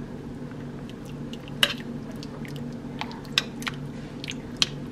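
A spoon stirring thick white chicken chili in a slow cooker pot: wet squishing, with scattered sharp clicks of the spoon against the pot, the loudest about a second and a half in and another near the end. A steady low hum runs underneath.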